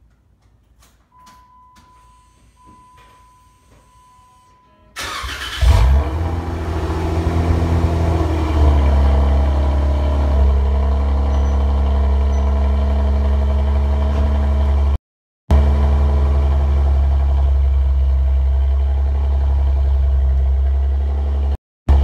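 A steady high electronic chime tone, then about five seconds in the 2016 Jeep Wrangler Rubicon's 3.6-litre Pentastar V6 is cranked and catches with a brief rev flare through a Pypes Street Pro dual-muffler catback exhaust. It settles into a steady fast idle that steps down in pitch twice, and the sound cuts out briefly twice.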